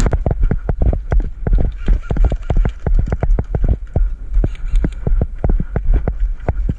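Quick, uneven footsteps and thumps of the camera-carrying player moving on foot, several a second, over a steady low rumble of wind on the microphone.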